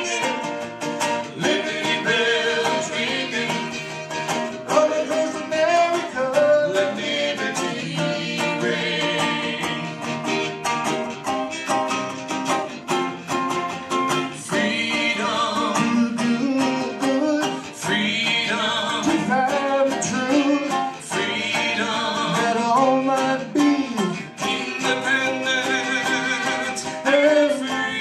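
A song performed live: singing voices over strummed guitar accompaniment.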